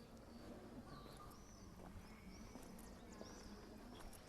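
Faint high chirps of small birds, repeated several times, over a steady low hum of the quiet city, with a few light clicks.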